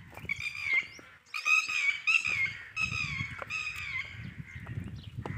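A bird calling over and over in short pitched calls, about five in the first four seconds, over a low rumble.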